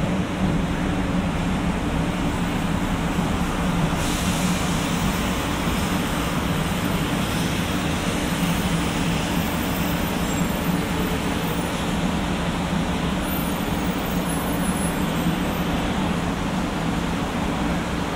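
A 500 series Shinkansen train rolling slowly alongside the platform as it draws to a stop: a steady rumble of wheels and running gear, with a brighter hiss from about four seconds in and faint high whines partway through.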